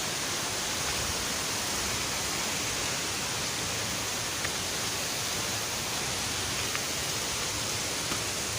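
Steady rush of a waterfall's falling water, with a few faint ticks.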